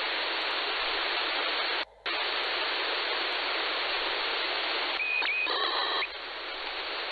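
Shortwave receiver static: a steady hiss from a web SDR tuned in upper sideband, with a brief dropout about two seconds in. About five seconds in, a burst of a digital signal's tones, about a second long, comes through the noise.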